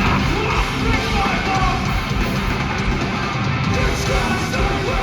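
Metalcore band playing live, loud and dense: distorted guitars and drums with yelled vocals.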